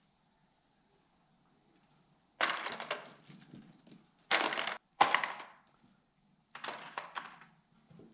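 An assortment of small old coil springs being rummaged through, in four short rattling bursts a couple of seconds apart.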